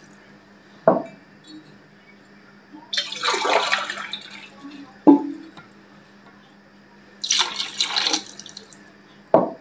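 Water poured by the glassful into a large metal cooking pot of chicken masala, in two pours a few seconds apart, with short knocks in between.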